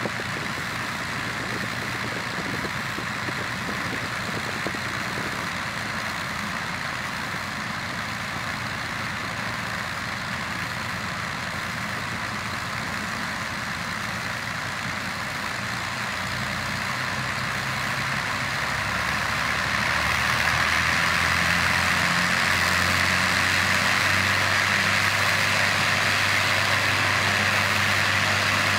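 Twin Rolls-Royce Merlin V12 engines of a de Havilland Mosquito T.III running on the ground during an engine run-up. They run steadily at low power, then a little past halfway the revs come up over a few seconds and the engines hold a louder, higher-powered note.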